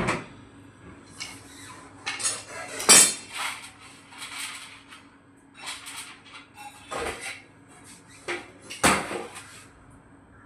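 Irregular clattering and clinking of hard objects being handled, a dozen or so sharp knocks and rattles with the loudest about three seconds in and near the end, over a faint steady hum.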